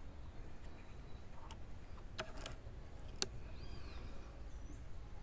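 Outdoor ambience with a small bird chirping once near the end, a few faint clicks about two seconds in, and one sharp click a little after three seconds.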